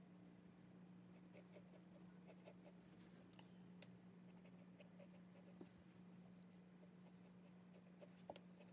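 Faint scratching of a pencil drawing lines on paper, with a few light ticks, over a low steady hum.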